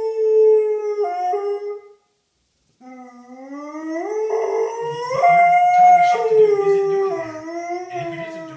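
A dog howling in long drawn-out howls. One falling howl dies away about two seconds in. After a short break a new howl rises steadily in pitch, then slowly falls, with a second howl at a different pitch overlapping it in the later part.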